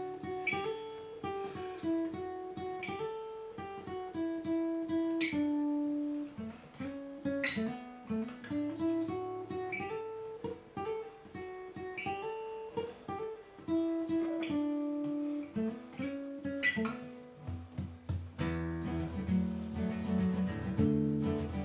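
Acoustic guitar played fingerstyle: single plucked notes and chords that ring and fade. Near the end the low bass part becomes fuller and busier.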